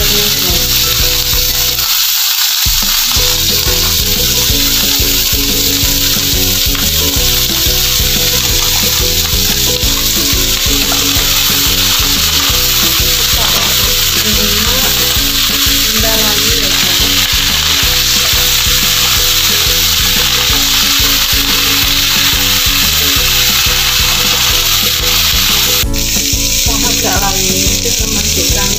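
Chopped mustard greens and cabbage stir-frying in hot oil in a wok, a steady sizzle as a wooden spatula turns them.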